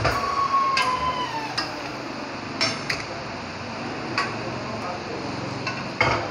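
Steel parts and tools clinking and knocking against the steel bed of a hydraulic press as a steering knuckle and press plates are handled, about eight sharp knocks at uneven intervals. The first knock leaves a metallic ringing note that sags slightly in pitch and dies away after about a second and a half.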